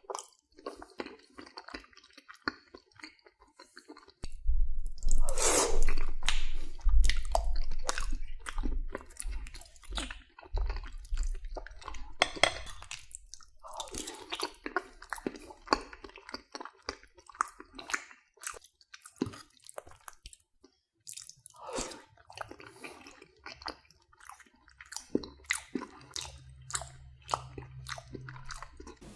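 Close-miked mouth sounds of chewing macaroni and cheese: irregular wet, sticky clicks and squelches. A low rumble runs under the chewing from about four to twelve seconds in.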